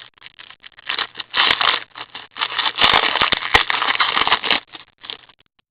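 A hockey-card pack being torn open and its wrapper crinkled and rustled in the hands, with many small crackles and scrapes; it is loudest and most continuous between about two and a half and four and a half seconds in.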